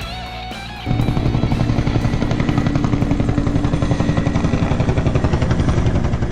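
Heavy rock music with electric guitar; about a second in it jumps to a loud, fast, even pulsing of roughly eleven beats a second.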